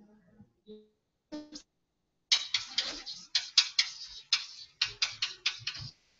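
A quick, irregular run of sharp clicks or taps close to the microphone, about four to five a second, starting a bit over two seconds in and stopping shortly before the end.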